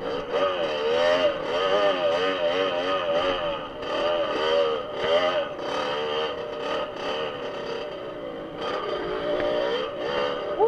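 Off-road dirt bike engine running under load, its pitch rising and falling every second or so as the throttle is opened and closed.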